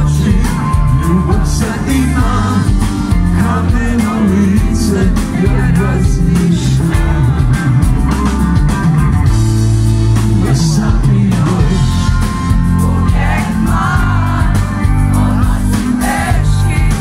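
Live band playing a song with a male lead vocal over heavy bass and a steady drum beat, heard loud from among the audience.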